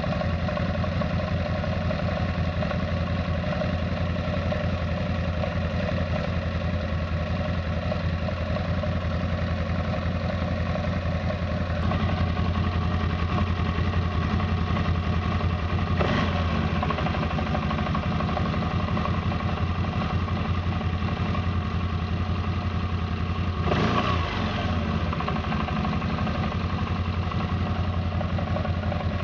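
CFMoto X8 ATV's V-twin engine running at idle with a knock, the noise the owner is asking about. It briefly revs up and back down near the end.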